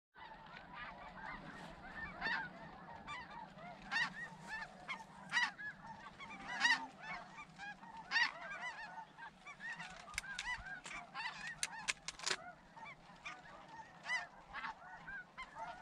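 Snow geese calling as a flock: many short, high yelping calls overlapping one another.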